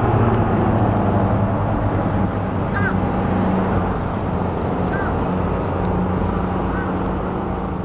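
Piston-engine light aircraft droning as it climbs away after takeoff, its steady propeller tone slowly fading. A bird calls in short chirps three or four times over it.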